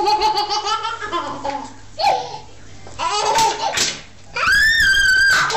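A baby laughing and squealing in four high-pitched bursts; the longest and highest squeal comes near the end.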